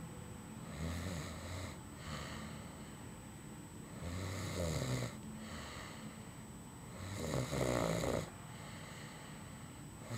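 A sleeping man snoring, three loud rasping snores about three seconds apart with quieter breathing between.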